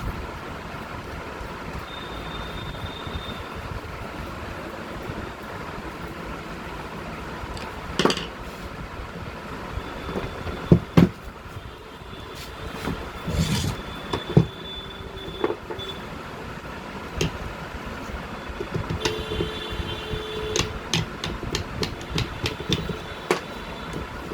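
Scattered knocks and clicks of tools and metal parts being handled during a hammer drill repair, over a steady background noise. A quick run of small clicks comes near the end.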